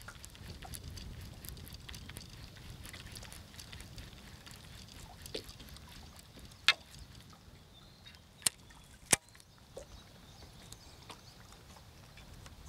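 Water lapping and sloshing quietly against a bass boat's hull, with a few sharp clicks in the second half.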